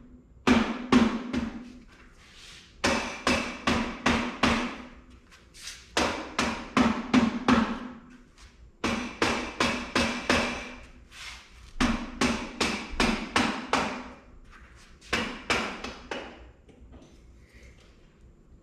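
Hammer striking metal in quick runs of four to six ringing blows, with short pauses between the runs, knocking a part of the motorcycle loose.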